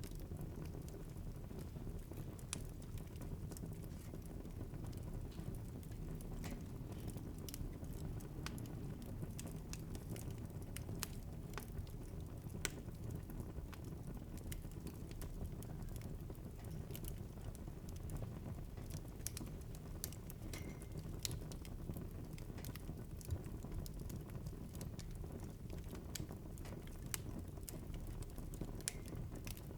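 Wood fire burning in a fireplace, crackling steadily with irregular sharp pops over a low, steady rumble of flame.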